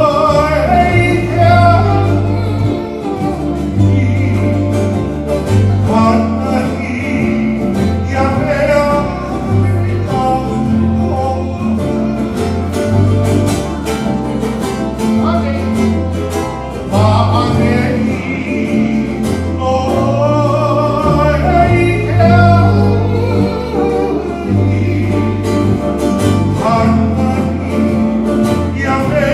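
Music: a song with a singing voice over instrumental accompaniment, with a moving bass line.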